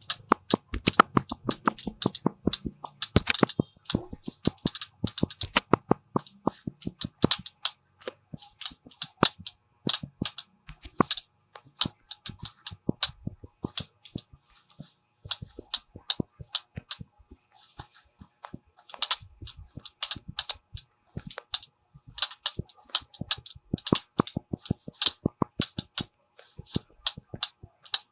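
Rapid, irregular taps and clicks of fingers touching and tapping on objects, several a second.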